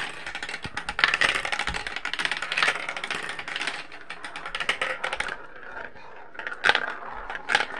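Marbles rolling and clattering down a plastic marble run: a dense rattle of small clicks and rolling for about five seconds, then a few separate clicks near the end.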